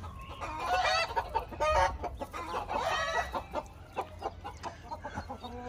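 Domestic hen cackling in a run of rising and falling calls over the first three and a half seconds, then fainter. It is taken for a hen that has just laid an egg.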